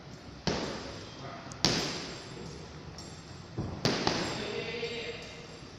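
Boxing gloves striking a hanging heavy bag: four punches, the last two in quick succession, each echoing in a large hall.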